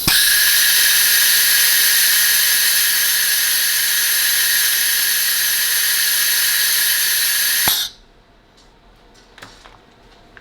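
Compressed air blowing out of a CNC router spindle's pneumatic tool release and deduster: a loud, steady hiss for about eight seconds, opening with a click and cutting off suddenly with another click near the end.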